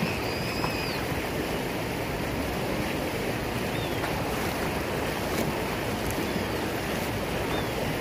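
Steady rush of a waterfall's falling water, with a few faint high chirps over it.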